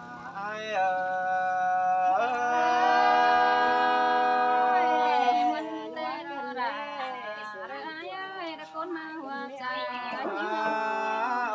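Unaccompanied Tai folk singing: one voice holds a long, drawn-out note for several seconds, then moves into shorter, wavering, bending phrases.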